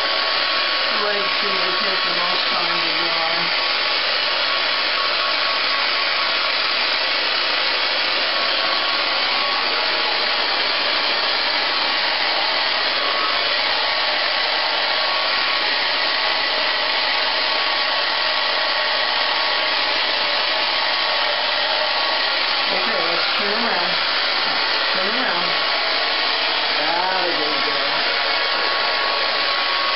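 Handheld hair dryer blowing steadily on a small dog's wet coat, with a thin steady whine from its motor.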